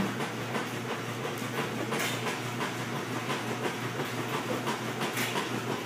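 Treadmill running: a steady motor hum with an even, rhythmic clatter from the moving belt.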